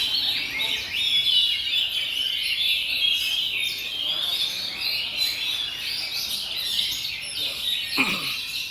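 Many caged oriental magpie-robins (kacer) singing at once in competition, a dense, unbroken tangle of high chirps and trills. Near the end a single sound glides steeply down in pitch.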